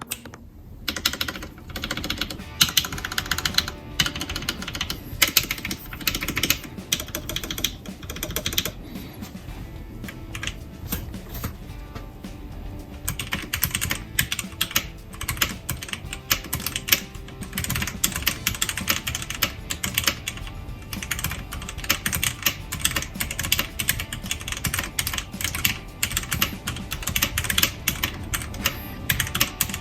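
Continuous fast typing on a modded CoolKiller CK-181 mini mechanical keyboard with red linear switches, O-rings under the keycaps and lubed, Holee-modded stabilizers: a rapid run of key clacks, over background music.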